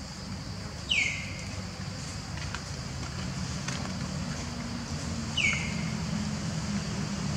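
Two short, high-pitched crying calls from an infant long-tailed macaque, each sliding quickly downward, about four seconds apart, over a steady low hum.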